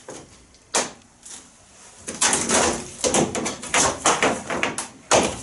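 Workshop handling noises: a single sharp knock about a second in, then a busy run of clattering, rustling knocks through the middle, ending in another sharp knock near the end.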